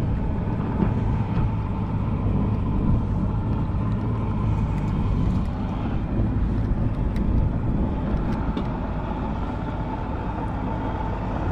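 A steady low mechanical rumble with a faint steady whine, with a few faint ticks.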